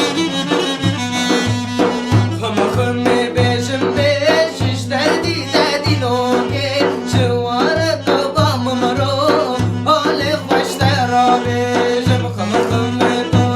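Instrumental break of a Kurdish folk song: a melody with bending, ornamented notes over a steady low drum-and-bass beat, about two to three beats a second.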